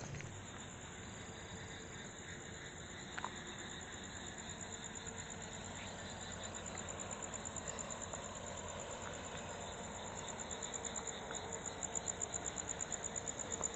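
Crickets chirping at night in a steady, high-pitched, rapidly pulsing chorus that grows louder near the end. There is one faint click about three seconds in.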